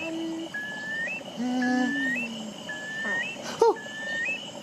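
Recorded bird call, five times in a row about a second apart: each a short rising whistle that ends in a quick upturn. Lower animal calls and a steady high tone sound underneath.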